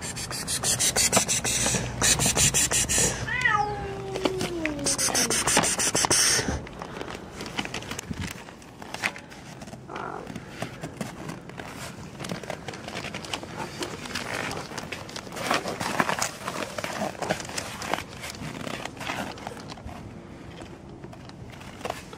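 A cat gives one long meow that falls steadily in pitch, about three seconds in, between loud bursts of harsh noise. After that come quieter scuffs and rustles.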